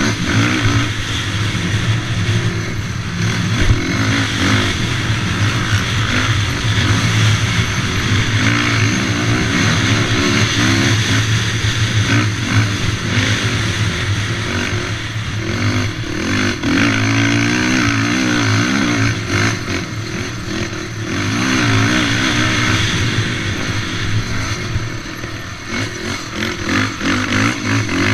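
Racing quad's engine heard on board, revving up and down continuously as it is ridden hard around a dirt motocross track. It drops off briefly a few seconds before the end, then picks up again.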